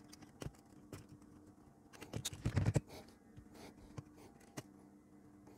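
Scattered small clicks and taps from handling a circuit board and fitting a resistor's wire leads through it, louder for a moment about two to three seconds in, over a faint steady hum.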